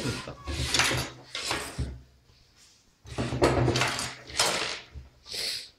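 Cut pieces of blouse cloth being gathered and shuffled by hand on a wooden table: two stretches of rustling with light knocks against the tabletop, the second starting about three seconds in.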